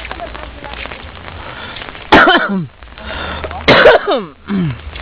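A person coughing twice close to the microphone, about a second and a half apart, each cough ending in a falling voiced tail, over a steady background hiss.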